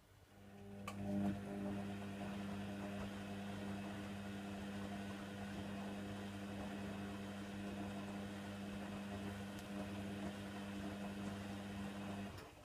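Hoover Nextra HNWL7146 washer dryer mid-wash: a steady motor hum with rushing water starts at once, with a click about a second in, and cuts off suddenly near the end.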